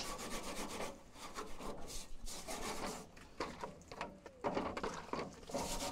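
Scrubbing a metal grill grate with bleach and soap powder: irregular rubbing, scraping strokes with short pauses.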